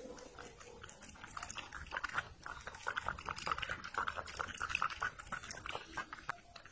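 A kitten licking at a glass with its tongue: a quick run of small wet clicks and smacks, louder through the middle.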